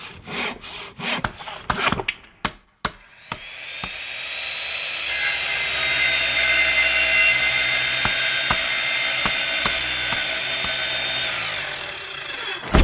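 Intro sound effects of workshop tools: a quick run of sharp knocks, then a long rasping, sawing-like noise with a steady whine that builds over a few seconds and cuts off sharply near the end.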